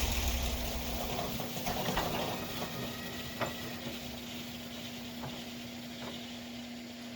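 Portable sawmill's engine dying away in the first second or so. After it a steady hum remains, with a few scattered sharp metallic clicks.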